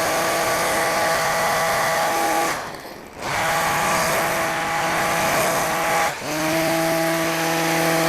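Hedge trimmer motor running while cutting long grass. It cuts out briefly about three seconds in, comes back, dips again around six seconds, then runs on steadily.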